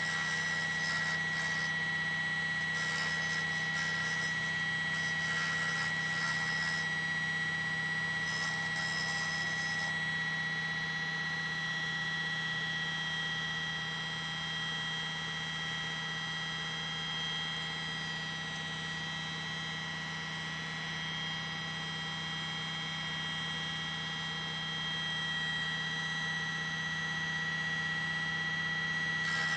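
Small diamond-blade table saw running with a steady high whine while it cuts through the glass envelope of an old vacuum tube, with rougher grinding in the first ten seconds or so.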